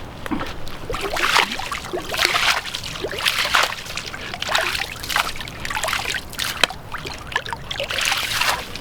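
A spade dipped into shallow stream water and swished back and forth, sloshing and splashing in repeated strokes about once a second, with one sharp click about two-thirds of the way through.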